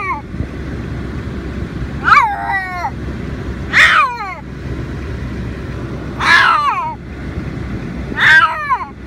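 Siamese cat screaming: four loud drawn-out cries about two seconds apart, each falling in pitch, over a steady low rumble. She is protesting at being shut in her carry bag.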